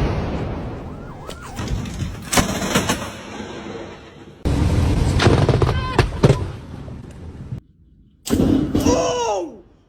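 Thunder from nearby lightning strikes: sudden loud cracks that rumble away, one about four and a half seconds in and another about eight seconds in.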